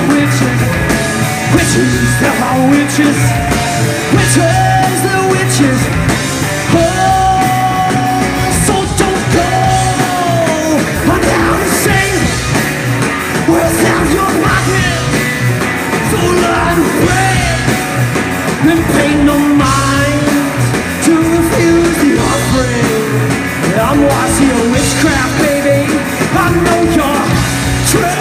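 Live rock band playing loud: electric guitar, bass guitar and drum kit, with the guitar's melodic lines sliding and bending in pitch over the steady drums.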